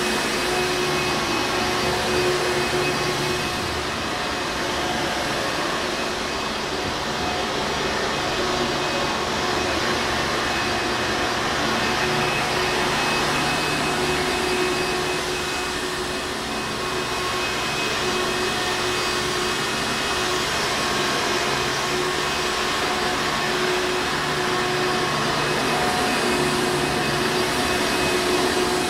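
Hoover Encore Supreme upright vacuum cleaner running steadily: a continuous motor hum and airflow rush with a steady whine, swelling and easing slightly every few seconds.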